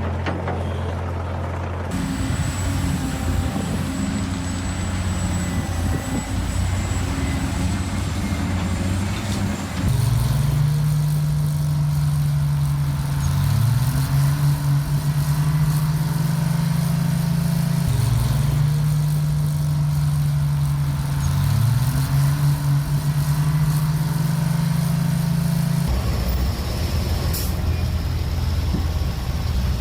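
Heavy machinery's diesel engine running steadily, with two brief rises in pitch as it revs; the sound changes abruptly about every eight seconds, as if cut between takes.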